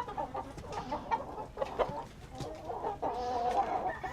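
Several domestic hens clucking and calling, with a louder call about three seconds in and a few brief knocks among them.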